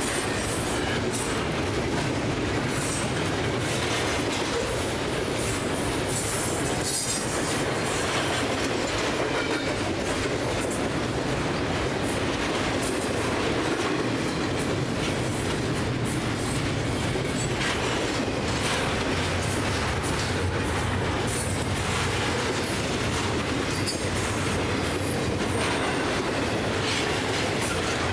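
Double-stack container train cars rolling past in a steady rumble of steel wheels on rail, with repeated clicking and clacking over the rail joints.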